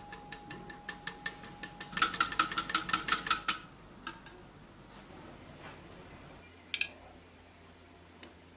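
Wire whisk clinking against a ceramic bowl while whisking a thin tomato-paste sauce: steady strokes at about four clinks a second, then about a second and a half of fast, louder whisking. A single clink follows later.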